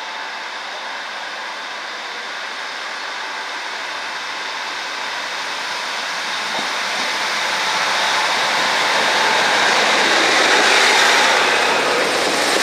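Northern Rail diesel multiple unit approaching and running in close alongside the platform. The engine and wheel noise grows steadily louder and is loudest over the last few seconds as the train draws level.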